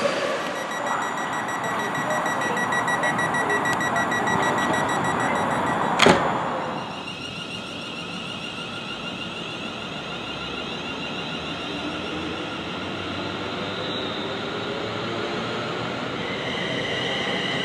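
London Northwestern Railway Class 350 Desiro electric multiple units moving through stations: a steady rail rumble with a thin, high electrical whine from the train. About six seconds in there is a single sharp click, and after it a second train is heard more quietly, still with faint whining tones.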